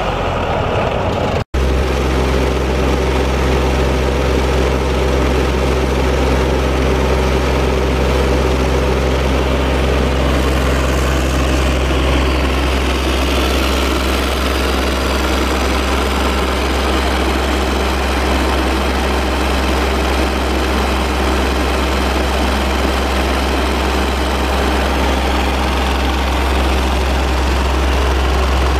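Caterpillar 3013 three-cylinder diesel engine of a Ferris IS5000Z zero-turn mower running steadily, with a deep, even hum. The sound cuts out very briefly about a second and a half in, then carries on unchanged.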